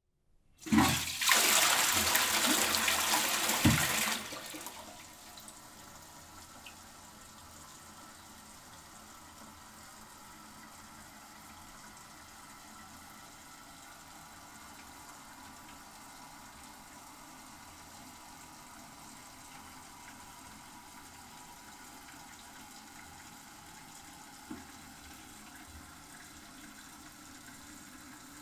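Toilet flushing: a loud rush of water lasting about three and a half seconds, then a steady, much quieter flow of water as the cistern refills, with a small knock near the end.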